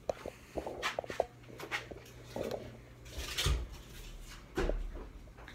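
Handling noise from a phone held close to the microphone: scattered clicks and rustles, with two dull bumps about three and a half and four and a half seconds in, over a faint steady low hum.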